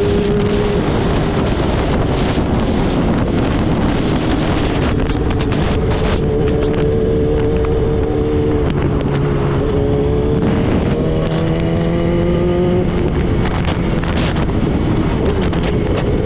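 BMW S1000RR inline-four engine running at a steady idle after a cold start, through a full Akrapovic 4-into-1 exhaust. Its pitch drifts only slightly up and down, with no blips of the throttle.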